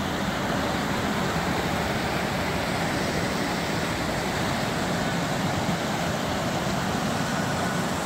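Steady rushing of the Selkefall waterfall, several streams of water pouring down rock steps into a pool.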